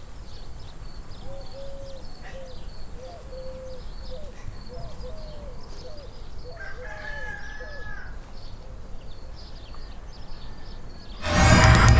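Farmyard ambience: a rooster crows once, about seven seconds in, over a run of short clucking calls and faint high bird chirps, with a low steady rumble underneath. Loud music cuts in suddenly near the end.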